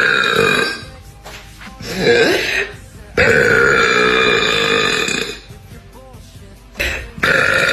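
A woman burping loudly, several deep belches one after another: a long one of about two seconds in the middle of the run, with shorter ones before and after it.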